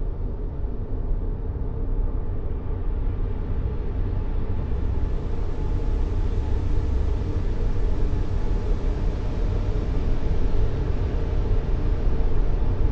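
Steady white noise, weighted to the low end so it comes across as a deep, even rush rather than a bright hiss, slowly getting louder.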